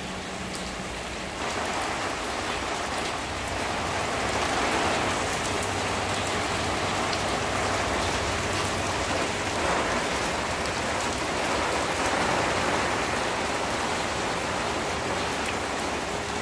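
Heavy rain falling steadily, growing louder about a second and a half in.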